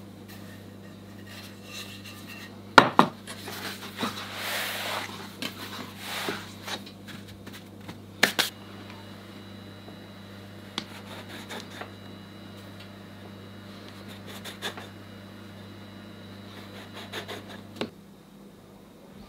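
Pierogi dough being worked into a thin sheet on a floured wooden board: rubbing and scattered knocks against the wood, two of them sharper, with small taps near the end as the sheet is cut. A steady low hum runs underneath and stops near the end.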